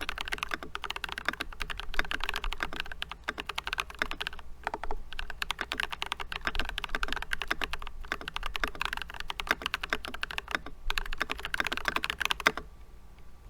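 Fast continuous typing on a GK64XS mechanical keyboard with Glorious Holy Panda tactile switches, dense key clacks with a few short pauses, stopping about a second before the end.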